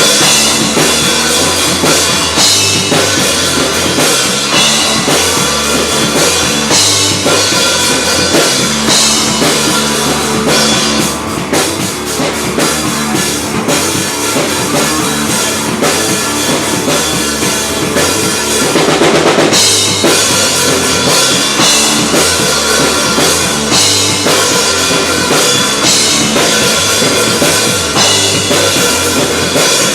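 Live band playing loud music, with the drum kit's bass drum and snare to the fore and a steady beat; the music dips briefly about eleven seconds in.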